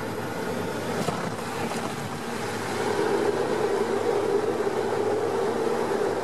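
Small propeller plane's engines droning steadily in the cabin during the landing, growing louder about three seconds in. A single knock sounds about a second in.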